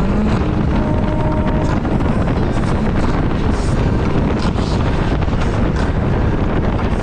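Wind rushing over the microphone of a moving Can-Am Spyder three-wheeled motorcycle, with the motorcycle's engine and road noise running steadily underneath.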